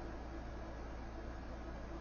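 Steady hiss with a low hum underneath, the background noise picked up by an outdoor security camera's microphone; no distinct sound event stands out.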